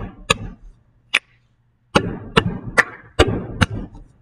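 Hands slapping a wooden desktop and clapping in a rhythmic hand-pattern game, about nine sharp smacks. The first few are spaced out, then they come in an even run of about two and a half a second.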